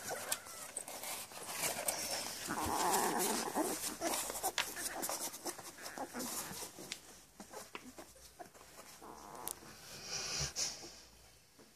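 Ten-day-old Labrador puppies nursing from their mother: snuffling breaths, wet suckling clicks and rustling of fur and bodies. The stretch a few seconds in is the loudest.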